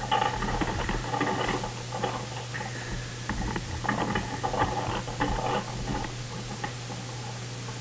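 Faint rustling and scattered light taps, over a steady low hum.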